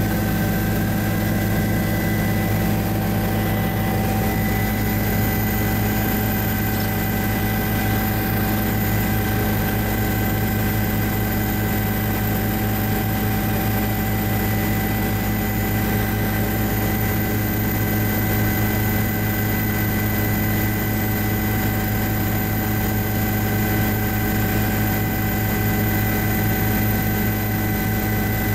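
Helicopter in flight heard from inside the cabin: a steady low rotor and engine drone with constant high whining tones above it, unchanging throughout.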